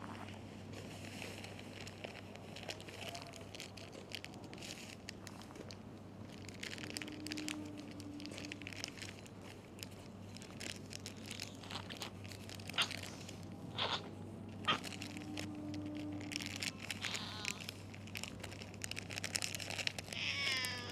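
Quiet outdoor ambience with a steady low hum, scattered rustles and a few sharp clicks, and a stray cat meowing once near the end.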